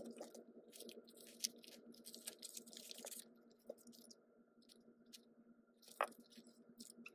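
A package being opened by hand: faint crinkling and rustling of paper and plastic packaging, with a sharper click about a second and a half in and another about six seconds in.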